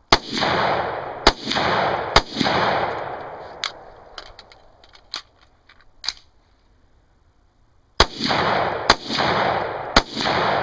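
Glock 19 9mm pistol shots: three loud shots about a second apart, then several fainter sharp clicks, then three more shots near the end. Each shot has a long echo fading after it.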